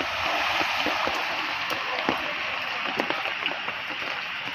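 Rain and running water on a flooded street: an even hiss with many small drops and splashes scattered through it.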